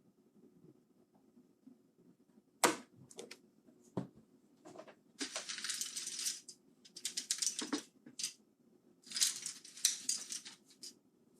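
Hard plastic keyboard parts being handled: a sharp knock, a few lighter taps, then several bursts of dense clicking clatter like a pile of loose keycaps being shifted.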